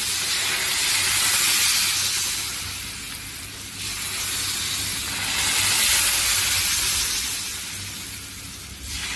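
Thin pearl-millet (bajra) dosa batter sizzling on a hot griddle as more batter is drizzled on with a spoon. The sizzle swells and eases off twice.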